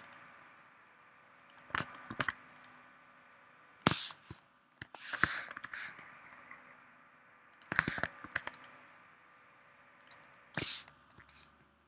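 Computer keyboard and mouse clicks in small clusters a couple of seconds apart: the Ctrl+R shortcut being pressed and clicks to place loop cuts.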